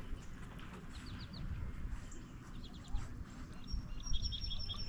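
Small birds chirping: short runs of quick repeated high notes about a second in, again around three seconds, and near the end, joined near the end by a thin high whistle. A low rumble sits underneath.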